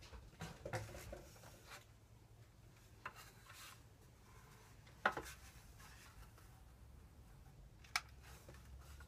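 Faint handling noises of a Crosman 760 Pumpmaster air rifle and its cardboard box: light rustling and a few sharp clicks and knocks, the clearest about five seconds in and another near eight seconds in.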